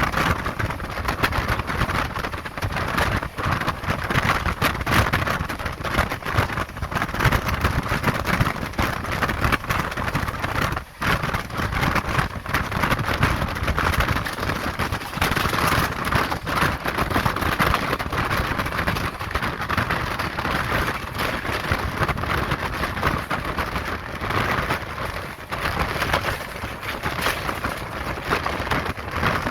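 Express train running at speed, heard from on board: a steady rush of wind with the dense rattle of wheels on rails. The noise drops out sharply for a moment about eleven seconds in.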